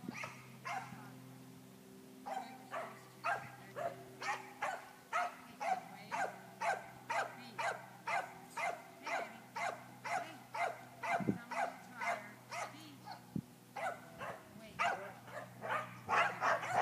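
A dog barking over and over at about two barks a second, starting about two seconds in and getting louder near the end.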